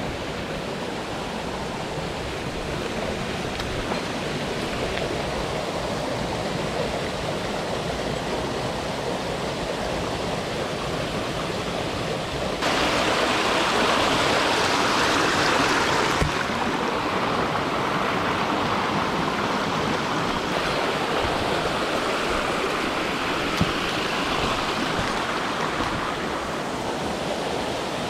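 Mountain stream rushing over boulders and small cascades, a steady rush of water. About halfway through it suddenly gets louder for a few seconds, as if close beside a cascade, then settles again.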